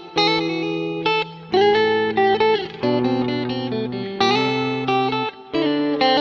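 Electric guitar playing a run of sustained, ringing chords, a new chord about every one to one and a half seconds, with a short pitch bend near the middle.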